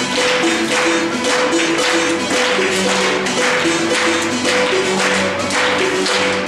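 Ghanaian percussion music: drums and shakers playing a fast, dense rhythm, with a short melodic phrase of held pitched notes repeating over it.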